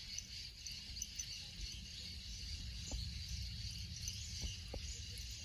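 Quiet field ambience: steady high insect chirring with a low rumble underneath and a few faint ticks.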